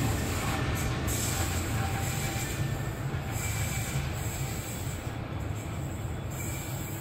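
Freight train rolling away with an 82 class diesel-electric locomotive: a steady low rumble of engine and wagon wheels on the rails that slowly fades, with faint wheel squeal.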